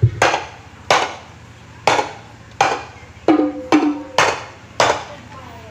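Loud single percussion strikes played through a large sound system for a sound check: about eight hits at an uneven pace, each ringing out briefly, and two of them near the middle carry a deeper pitched drum tone.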